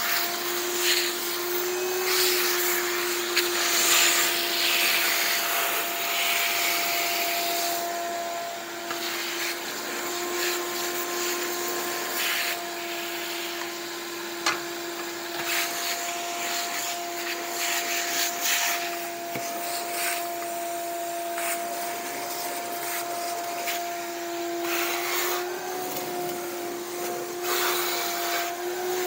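Shop vacuum running steadily with a constant motor hum, sucking up drilling and tapping debris from a drill press table and workbench. The suction hiss swells and fades as the nozzle moves over the surfaces, with a few sharp clicks of debris hitting the hose.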